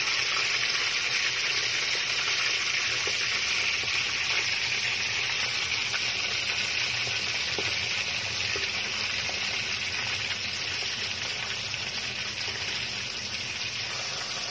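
Hot oil sizzling steadily around a whole chicken as it fries, a dense hiss that eases off slightly toward the end.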